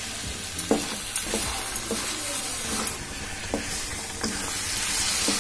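Raw jackfruit pieces frying in masala in a metal kadai, sizzling steadily, while a spatula stirs them, scraping and knocking against the pan a dozen or so times at uneven intervals.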